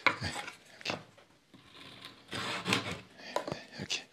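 Thin-bladed hand saw cutting a small wooden lattice bar held in a wooden saw guide, shaping the tenon on the bar: a few short rasping saw strokes about two seconds in, with single wooden knocks before and after and a quiet gap in between.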